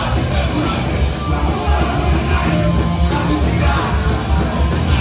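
Live punk rock band playing loud: electric guitars, bass and drums, with a singer shouting into a microphone.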